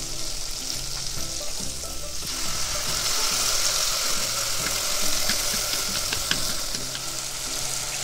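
Onions and spices sizzling in hot oil in a pot for a tadka, stirred with a wooden spatula. About two seconds in the sizzling grows louder as puréed tomato is poured into the hot oil.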